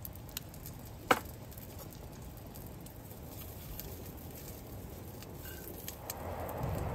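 Sausages sizzling in a frying pan on a camping gas stove, a steady crackling patter that grows louder near the end as they are turned with tongs. A single sharp clink about a second in.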